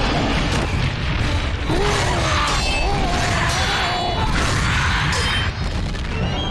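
Fight-scene soundtrack: heavy crashing impacts and a loud wavering roaring cry over a dramatic score.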